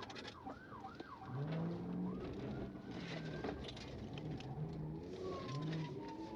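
Pigeons cooing: a run of low coos that rise and fall in pitch, repeating every second or so, with a few quick higher chirps in the first second and a thin falling tone near the end.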